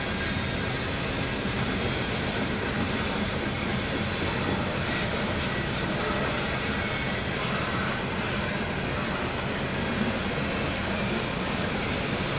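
Covered hopper cars of a freight grain train rolling past, a steady rumble and wheel-on-rail noise.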